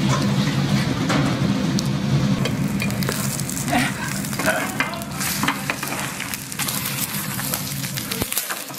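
Chive pancake batter sizzling in oil in a square nonstick frying pan over a gas burner, with a few light clicks and scrapes of a spatula against the pan. A steady low hum runs underneath.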